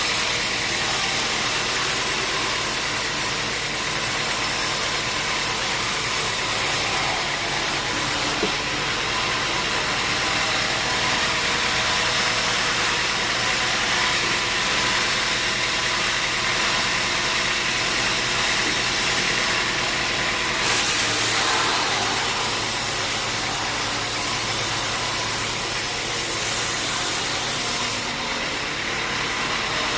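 Sawmill machinery running steadily, a dense mechanical drone with a high hiss that rises and falls in strength a few times.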